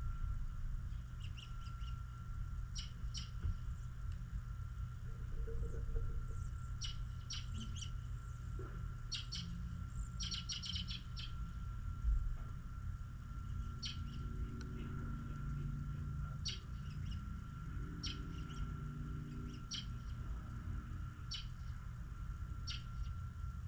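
Small birds chirping: short, high chirps at irregular intervals, with a quick run of them about ten seconds in, over a steady low rumble.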